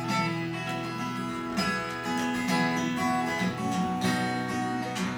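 Strummed acoustic guitar playing a chord progression, the instrumental lead-in of an improvised song.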